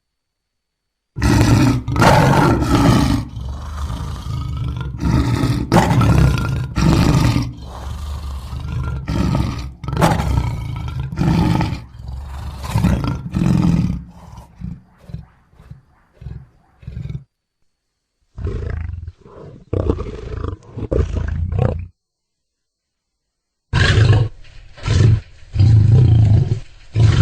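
Lion roaring: a long bout of loud, deep roars that trails off into a run of shorter and shorter grunts. After brief silences, two further separate roaring clips follow, both duller-sounding.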